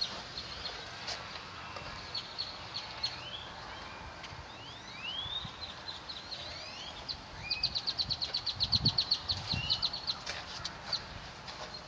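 Birds chirping: short rising whistled notes, then about seven and a half seconds in a rapid trill of about ten notes a second lasting some two seconds. A few faint low thuds come near the same time.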